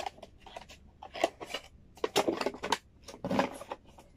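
Cardboard camera packaging being handled: a run of rustles, scrapes and sharp clicks, thickest around two seconds in and again near the end.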